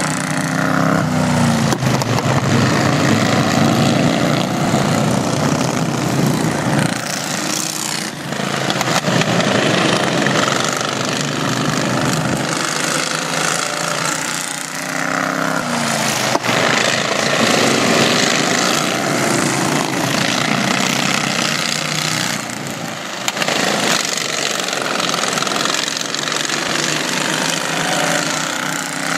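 Several racing lawn tractors running hard on a dirt track, their engines overlapping, with the pitch sliding up and down each time a tractor passes close by and pulls away.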